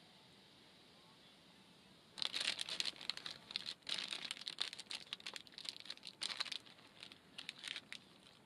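Plastic instant-ramen bag crinkling as it is handled, a dense run of quick irregular crackles that starts about two seconds in and thins out near the end.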